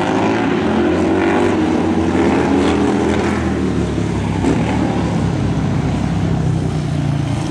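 Big-twin bagger touring motorcycles (Indian, Harley-Davidson and BMW R18) racing on a kart track. Their engines rev up and down in pitch as they power through the corners and past, settling into a steadier, deeper drone in the second half.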